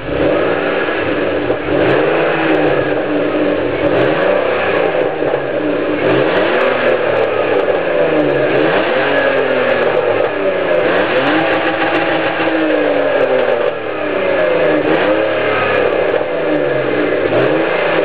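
BMW E46 320Ci's 2.0-litre straight-six, heard at the tailpipe of its stock exhaust, revved repeatedly while standing still: the engine note rises and falls back every second or two.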